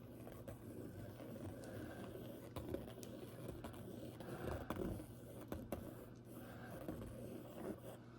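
Faint scraping and light ticks of a stick dragged through wet acrylic paint on a canvas, over a low steady hum.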